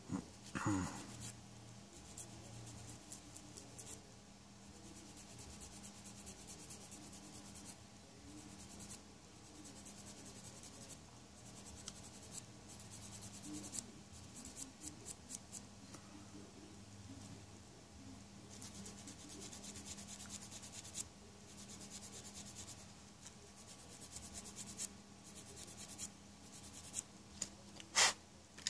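Sanding stick rubbing over a small styrene plastic model part in quick back-and-forth strokes, in several short spells with pauses between. A single sharp click near the end.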